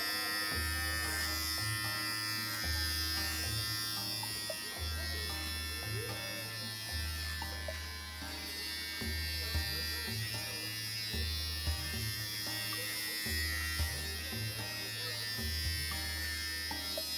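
Electric dog clippers running with a steady buzz as they shave a dog's body coat. Background music with a bass line that changes note about once a second plays along.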